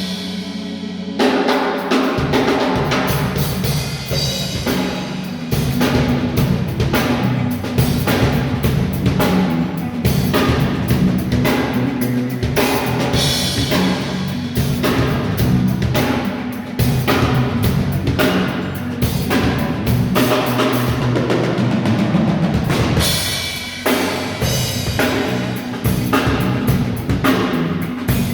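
Drum kit played through a full groove with kick, snare and cymbals, far out in front of the mix; the rest of the band sits faint underneath because it is heard only in the players' headphones.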